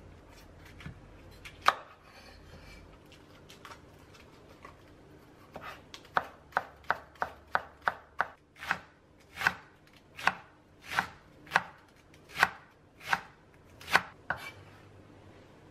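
Chinese cleaver slicing cabbage into fine shreds on a wooden cutting board. A few scattered knocks of the blade on the board, then from about six seconds in a steady run of strikes, quick at first and then slowing to about one every three-quarters of a second.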